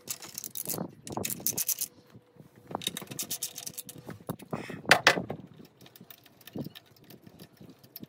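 Hand ratchet with a 10 mm deep-well socket clicking in quick bursts as the fuel-rail bolts are backed out, with one sharper metal clank about five seconds in.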